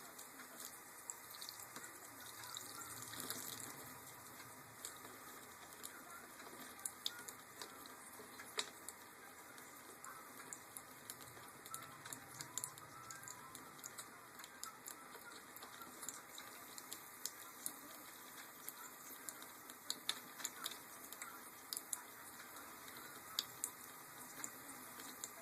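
A green-cheeked conure bathing: many small splashes, drips and patters of water, scattered irregularly over a faint steady hiss, with a brief swell of splashing about three seconds in.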